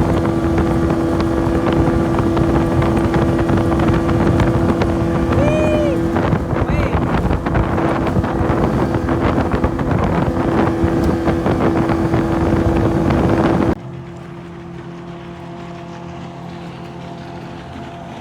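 1978 GameFisher 15 two-stroke outboard running at speed into the wind: a steady engine drone mixed with water rush and wind buffeting the microphone. About fourteen seconds in the sound drops abruptly to a much quieter, steady engine hum.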